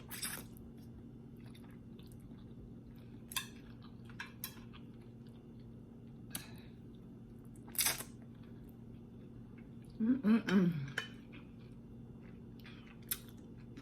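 Close-miked eating: chewing, with scattered sharp clicks of utensils against the dish. A short hummed vocal sound comes about ten seconds in.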